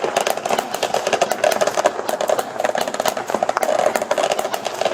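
Fireworks crackling: a dense, rapid run of sharp pops and crackles.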